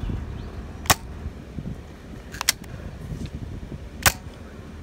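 Nerf Alphastrike Optic QS-4, a spring-powered four-shot dart pistol, firing three shots about a second and a half apart. Each shot is a short, sharp snap.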